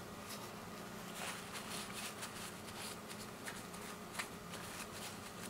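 Faint rustling and light scratchy rubbing of a Kimwipe paper tissue, folded in the hands and wiped over a printed circuit board to clean it, with a small click about four seconds in.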